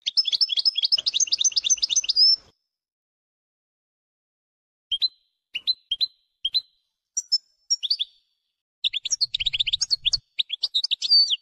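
European goldfinch song: a fast run of rapid twittering notes lasting about two seconds, then a pause, a few scattered single chirps, and a second rapid twittering phrase near the end.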